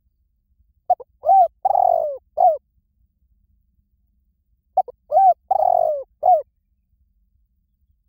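Spotted dove cooing: two phrases about four seconds apart, each of four coos. Each phrase is a short note, an arched coo, a long falling coo and a short final coo.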